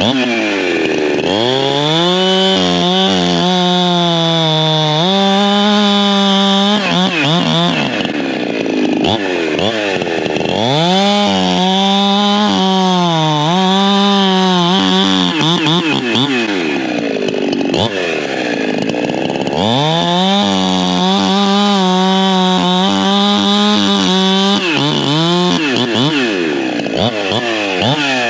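Holzfforma G372XP Pro two-stroke chainsaw bucking a log at full throttle. Its engine pitch drops and holds steady under load through three cuts, and it swings back up each time the chain clears the wood.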